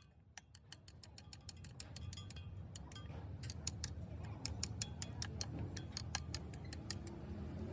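Ratchet wrench clicking quickly, about five clicks a second, as a bolt is tightened, over a low rumble that grows louder in the first few seconds.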